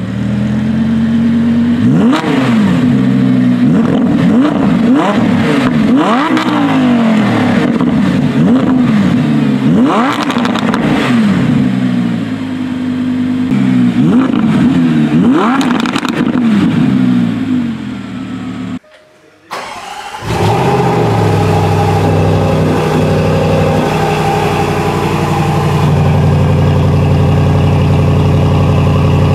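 Lamborghini engines being revved repeatedly while parked, many quick blips with the pitch rising and falling. After a short break a different car's engine starts and runs steadily at idle.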